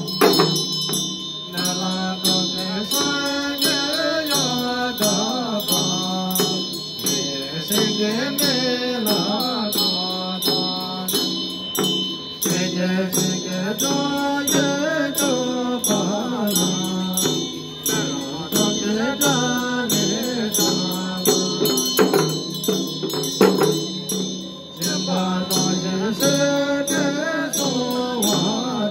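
Tibetan Buddhist chöd ritual chant: voices intone a melodic mantra while large two-headed chöd damaru drums are twirled in quick irregular rattles and hand bells (drilbu) ring without a break. The chant pauses briefly a few times.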